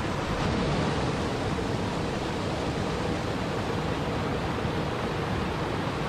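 Small waterfall cascading over boulders into a river: a steady rush of falling and splashing water.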